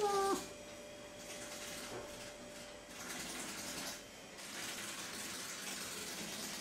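Coypu (nutria) giving one short call that drops slightly in pitch right at the start, followed by a soft steady hiss.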